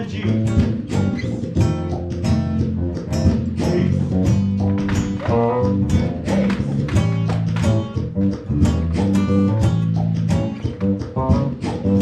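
Live guitar music: quickly picked guitar notes over held low notes.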